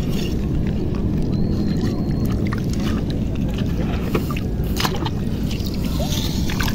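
A hand sloshing in shallow seawater and scooping small shellfish off the sandy bottom, over a steady low rumble. A few short splashes and clicks break through, the loudest near the end.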